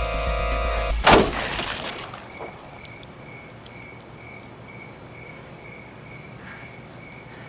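Horror-film soundtrack: sustained synth music cuts off with a sudden loud crash about a second in that rings out, leaving a quiet, high, chirping pulse repeating about twice a second.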